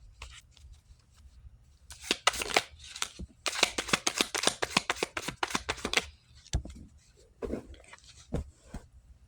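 Deck of reading cards being shuffled: a rapid run of crisp card flicks for about four seconds, followed by three dull knocks.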